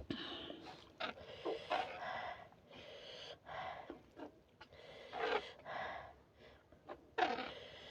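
Close-miked mouth sounds of a person eating 2x spicy noodles: noisy bursts of slurping and chewing mixed with heavy breaths and sniffs, coming irregularly every half second or so.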